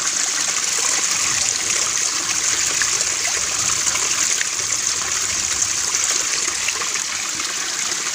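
Water from a natural mountain spring running steadily, an even rushing trickle.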